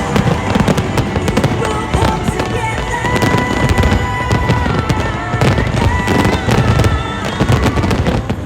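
Fireworks display: shells bursting and crackling in rapid, continuous succession over a music soundtrack with long held notes.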